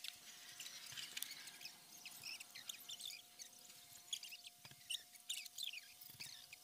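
Many quick high-pitched chirps, several a second, like small animals calling, over a faint steady hum.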